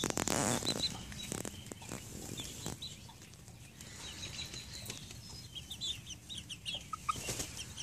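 Young chickens, about seven weeks old, calling with short high peeps while foraging, the peeps coming thicker a little before the end. A burst of rustling and clicks in the first second.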